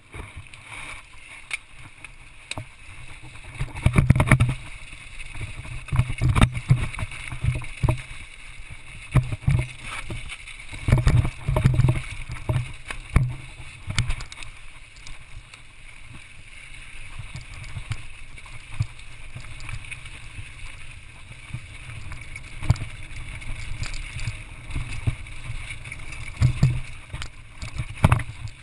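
Mountain bike riding downhill over rough granite and dirt, with a steady rumble of tyres and wind and frequent irregular deep thumps and rattling knocks as the bike hits bumps and rocks.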